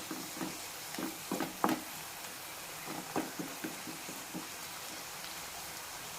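A spoon stirring chopped leaves in a pan, with a string of short scrapes and knocks against the pan for about the first four seconds. Under them, and alone afterwards, a faint steady sizzle of the thoran cooking.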